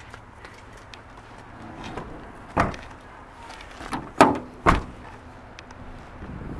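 Hinged rear side door of a 1996 Honda Odyssey shut with a sharp thump, followed about a second and a half later by two more sharp knocks half a second apart.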